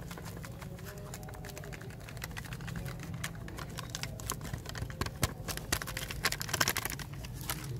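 Foil packet of powdered rasmalai mix crinkling as it is shaken out over a clay bowl, a rapid run of small crackly clicks that grows busier near the end.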